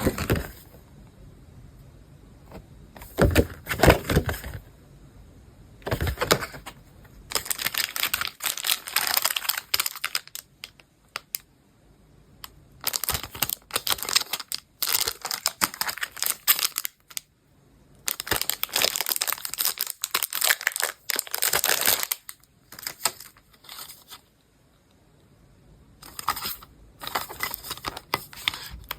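Packaging crinkling and being torn open by hand in irregular bursts, a few seconds each with short pauses between.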